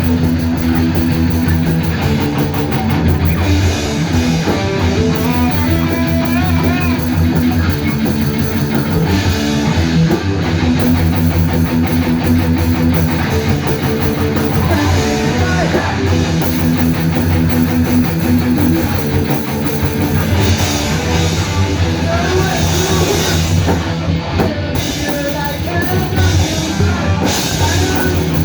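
Live rock band playing a loud song with guitar and drum kit.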